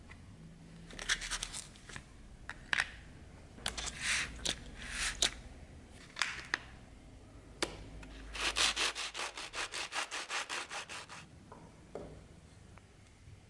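A small steel piece being scraped and filed by hand on a wooden workbench. A few separate scraping strokes, then partway through a quick, even run of short strokes, about eight a second, for about three seconds.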